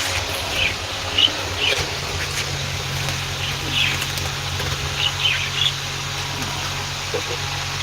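Budgerigars giving short, high chirps at irregular intervals, over a steady low hum.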